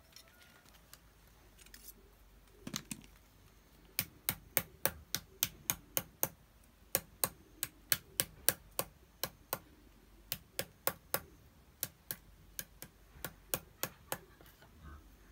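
A small hammer tapping along a thin metal wire rod laid on a wooden stump block: a steady run of sharp, light metallic taps, about three a second, with a short pause midway.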